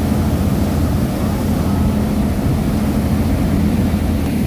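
Passenger boat's engine running with a steady low drone under the rushing noise of its churning wake.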